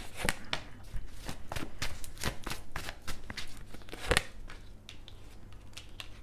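Tarot cards shuffled by hand: a quick run of soft card clicks and flicks that thins out after about four seconds, with one sharper snap at that point.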